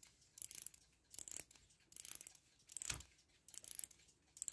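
Mainspring of a small brass mechanical desk-clock movement being wound by its key: the ratchet click clatters in short clustered bursts, one stroke about every 0.8 seconds.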